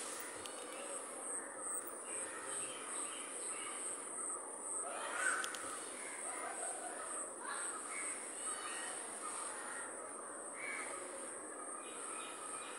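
Birds calling outdoors, one call loudest about five seconds in, over a steady high insect buzz.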